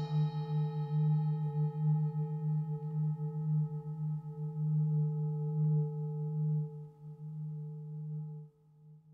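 Brass singing bowl ringing after a mallet strike, one low hum with fainter higher overtones. The ring wavers in a slow pulse as it fades, then drops away sharply near the end.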